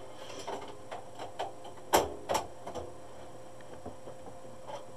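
Hands working stabilizer backing into a metal hat clamp: scattered light clicks and rustling, with two sharp knocks close together about two seconds in. A faint steady hum runs underneath.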